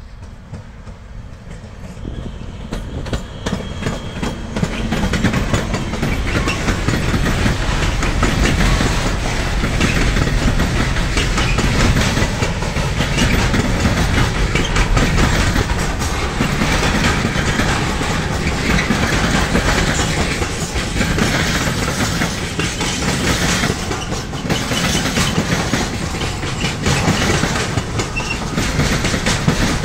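Freight train passing, its wagon wheels clattering over the rail joints. It grows louder over the first few seconds, then runs on steadily.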